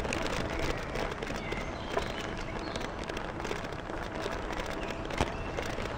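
Bicycle rolling along a forest trail: a steady rumble and rattle from the tyres and frame, with a couple of sharper knocks from bumps, about two seconds in and again past five seconds.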